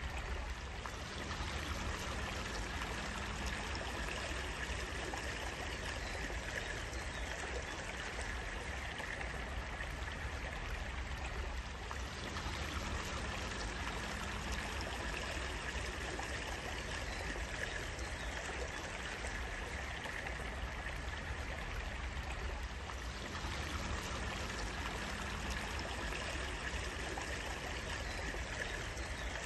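Water running steadily in a stream, a constant even rush.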